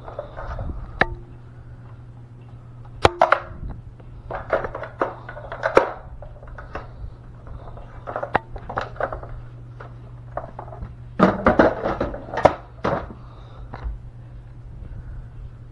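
Scattered clicks, knocks and rattles of hard objects being handled by hand, in small clusters, over a steady low hum.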